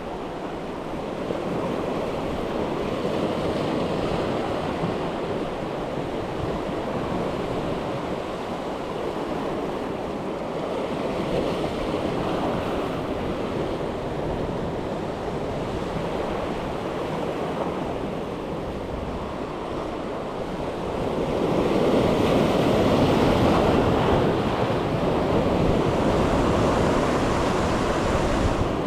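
Ocean surf washing against the shore, a steady rushing wash that swells louder about two-thirds of the way through.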